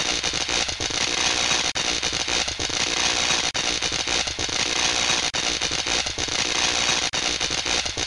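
Loud, steady static-like hiss with crackling, starting abruptly, with a few brief dropouts.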